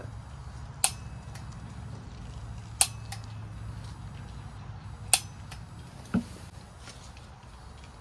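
Push-button piezo igniter on a propane torch, clicked with no gas connected: three sharp snaps about two seconds apart, each followed by a fainter click, then a weaker click with a low knock.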